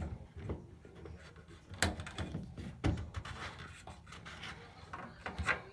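Plastic rubbing and scraping with a few sharp knocks as a washing machine's drain pump filter is put back in place behind the bottom flap.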